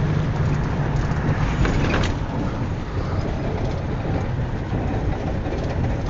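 Engine and road noise heard from inside a moving combi passenger minibus: a steady low hum under rushing road noise, with a couple of short knocks or rattles about two seconds in.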